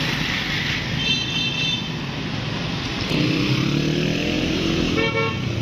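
Street traffic noise with a motor vehicle's engine rising in pitch about three seconds in, and a brief higher pitched tone near the end.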